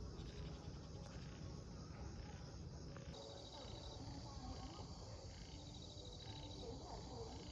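An insect trilling: a fine, rapidly pulsing high note that starts about three seconds in, over a steady low rumble of outdoor background noise.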